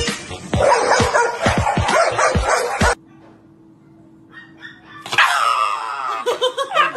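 Background music with a steady beat, cut off about three seconds in. About two seconds later a black-and-tan Shiba Inu, held and handled for an examination, screams: one long cry that falls in pitch, then a quick string of short yelping cries.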